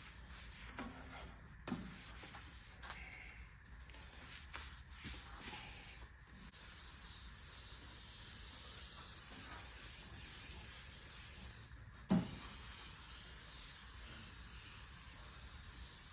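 Rubbing and wiping on the bandsaw table with a towel, then, about six seconds in, a long steady hiss like an aerosol spray can being sprayed, broken once by a short knock about twelve seconds in.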